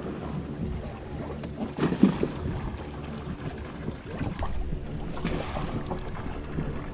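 Steady low hum of a wooden fishing boat's onboard motor, with wind on the microphone and the sea washing against the hull. Louder surges of wind or water come about two seconds in and again around five seconds.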